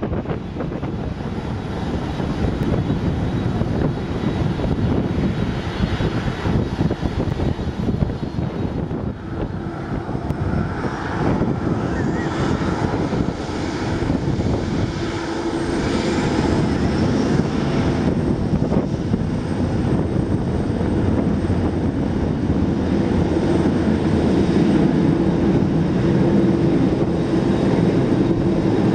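Airbus A330-200 jet engines running at taxi power: a steady rumble and hiss, with a whine gliding up and down about a third of the way in and a low hum that grows stronger in the second half.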